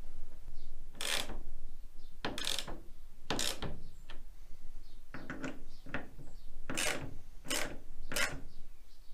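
Hand torque wrench starting thread-tapping set screws into a van's sunroof frame: a short ratcheting stroke about once a second, seven or so in all, as each screw is turned in.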